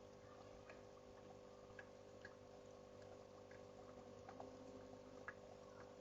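Faint waterfall water sound with scattered small drips and ticks, over a steady low hum.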